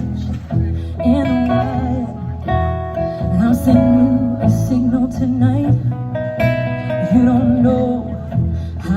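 Small acoustic band playing: strummed acoustic guitar under a wavering, sustained melody line.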